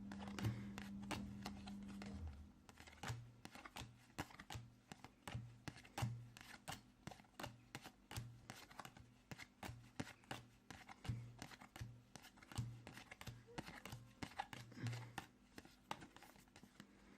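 Pokémon trading cards being handled and flipped through one by one: a faint, irregular run of small clicks and slides.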